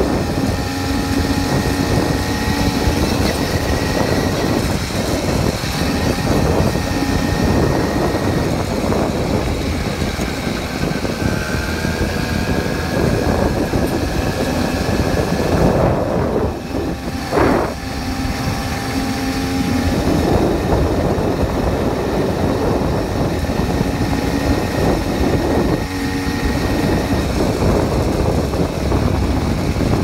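80cc bike's small engine running under way on a rough dirt track, its note drifting up and down with the throttle. It eases off briefly about halfway through, then picks up again.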